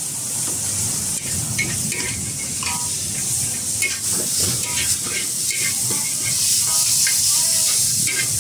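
Egg noodles sizzling in a hot wok, a steady hiss, while a metal ladle stirs and tosses them, scraping and clinking irregularly against the wok.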